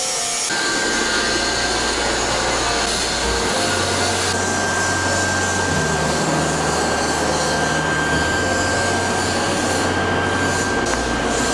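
Machinery running with a steady drone. A thin, steady whine comes in about half a second in, and a low hum shifts in pitch every few seconds.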